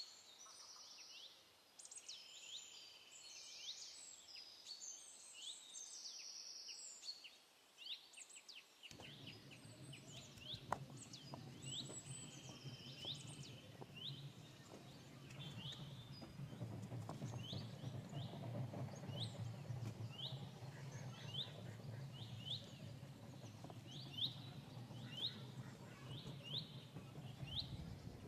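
Birds calling, at first a mix of chirps and trills, then one bird repeating a short rising chirp a little faster than once a second. From about a third of the way in, a low, rough rumble joins them: a stone roller grinding on a stone slab (ammikal). It stops just before the end.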